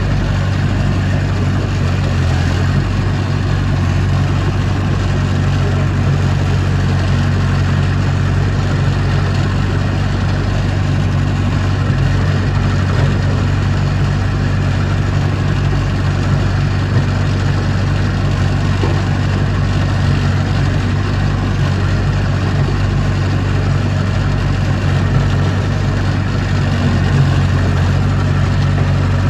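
Heavy diesel engine of earthmoving machinery running steadily at a constant low speed, with a deep even hum that hardly changes.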